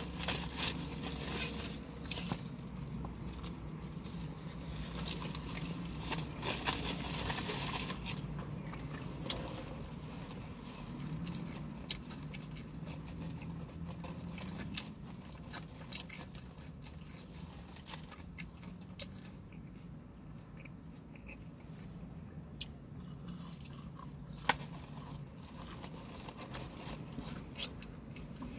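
Person chewing and munching food close to the microphone, with scattered small clicks and crunches over a low steady hum.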